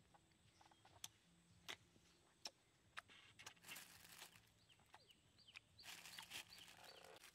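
Thin plastic bag crinkling in two spells, about four and six seconds in, as a hand rummages among rambutans inside it. Before that, a few sharp clicks.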